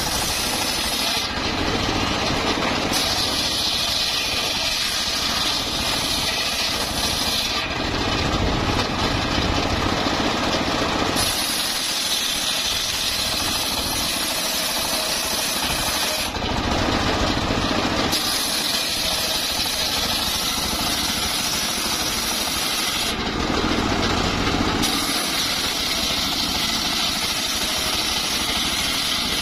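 Homemade engine-driven circular sawmill running and sawing a mahogany log, a loud continuous machine noise whose high-pitched part drops out and comes back every few seconds.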